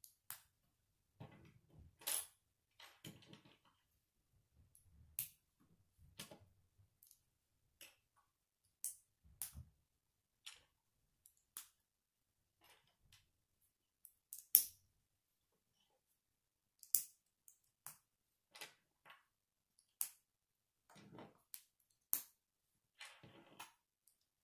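Plastic K'nex rods and connectors clicking as they are snapped together by hand: irregular sharp clicks about a second apart, with soft handling rustle between.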